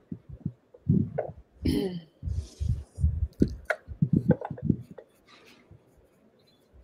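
Writing on paper with a pen, picked up through the desk as a run of short low thuds and taps, with a brief scratchy hiss about two and a half seconds in.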